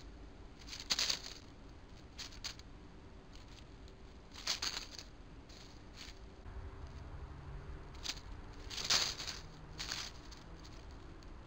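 Small rodents scuffling through dry leaf litter: a handful of short rustles, the loudest about a second in and again near nine seconds.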